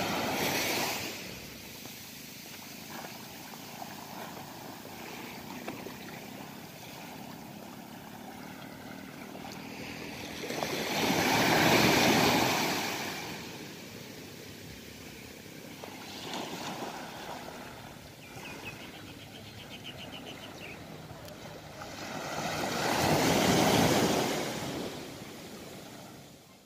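Small waves washing up on a sandy beach over a steady hiss of surf, swelling louder twice, about twelve seconds apart, and fading out near the end.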